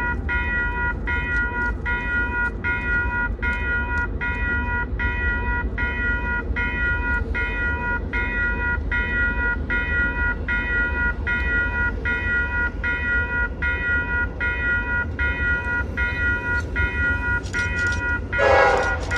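Railroad grade crossing bell ringing steadily in an even repeating pattern as a train approaches. About a second before the end a louder, wavering locomotive horn sounds from the approaching RJ Corman SD70M locomotives.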